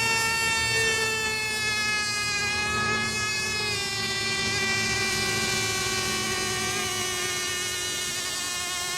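Several radio-controlled racing boats' engines running at once as the boats circle. They make an overlapping high-pitched whine whose pitches drift slowly up and down.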